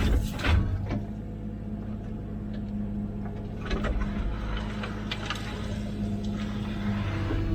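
Komatsu PC16 mini excavator's diesel engine running steadily while it digs, with sharp clanks and scrapes near the start and again around the middle.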